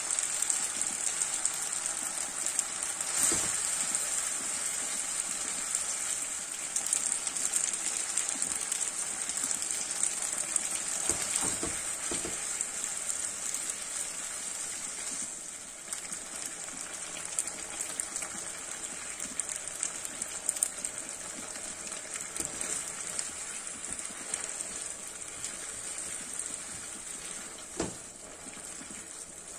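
Spaghetti and diced pancetta sizzling in a hot frying pan as a ladle of starchy pasta water is poured in and the pasta is stirred with a wooden spoon. The sizzle eases off about halfway through as the water cooks down, with a few soft knocks of the spoon against the pan.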